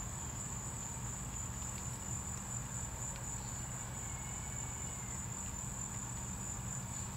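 A steady, unbroken high-pitched trill over a low hum, with nothing else happening.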